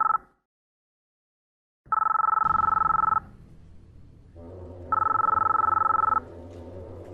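Telephone ringing in repeated trilling bursts about a second long: the end of one ring, a short dead-silent gap, then two full rings about three seconds apart. A low steady hum runs under the later rings.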